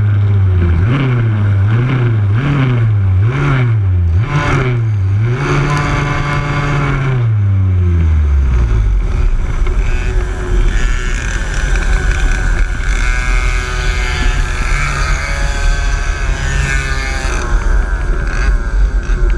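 Yamaha KT100 100cc two-stroke kart engine heard from on board the kart. Its pitch rises and falls about once every three-quarters of a second for five seconds, holds high briefly, then winds down about eight seconds in. After that comes a low running rumble with wind noise as the kart slows and rolls in.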